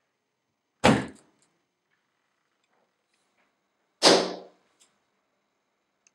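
Rubber mallet striking a wall twice, about three seconds apart, as an impact test of wall-mounted shock sensors; each blow is a sharp knock that rings on briefly.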